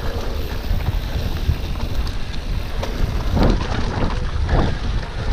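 Wind buffeting the microphone of a camera on a Specialized Epic Comp mountain bike ridden fast, with the rumble of its tyres on a dirt track.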